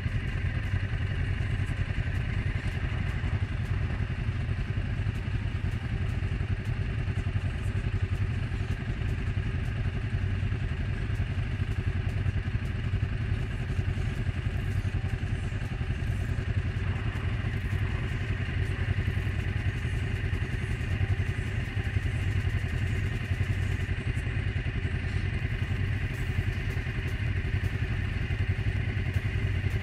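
Suzuki King Quad 750 ATV's single-cylinder engine idling steadily.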